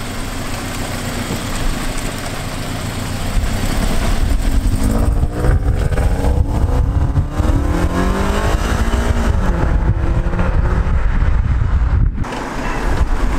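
Scion FR-S flat-four engine on its stock exhaust, accelerating: the engine note climbs in pitch over a few seconds, then falls away.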